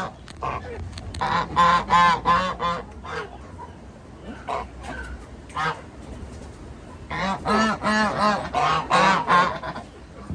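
Domestic geese honking. There are two runs of rapid, repeated honks, one starting about a second in and another about seven seconds in, with single honks between them.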